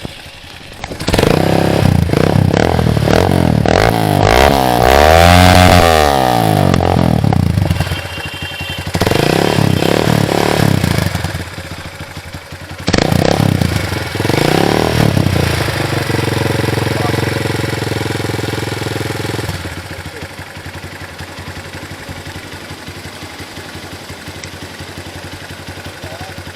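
Hi Speed SR200 motorcycle engine through an aftermarket HKS exhaust, revved up and back down four times, the biggest rev about five seconds in. It then settles into a steady idle that drops lower and quieter about two-thirds of the way through.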